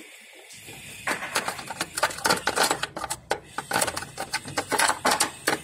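Rapid, irregular clicking and clattering of small plastic toys being handled and knocked together, starting about a second in.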